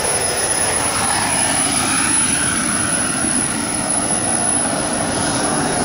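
Mini jet turbine engine on a Traxxas X-Maxx RC truck running steadily while the truck drives off under remote control.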